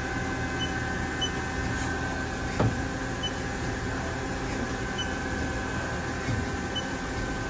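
Haas SL-30T CNC lathe running with a steady machine hum and several high steady whine tones as its tool turret indexes round, with a single clunk about two and a half seconds in.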